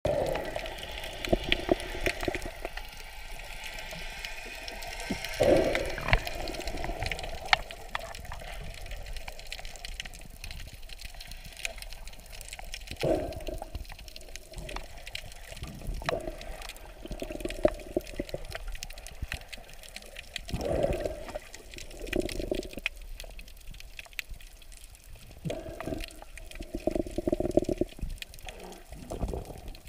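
Water sloshing and bubbling, recorded with the microphone underwater, so it sounds muffled. Crackles and clicks run through it, with a muffled surge every few seconds and a longer run of them near the end.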